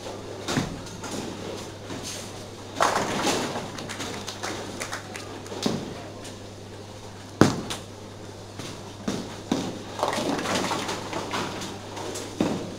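Bowling alley sounds: a single sharp knock a little over seven seconds in as a ball lands on the lane, then a longer clatter of pins about three seconds later, with other knocks and clatters from the hall around them. A steady electrical hum runs underneath.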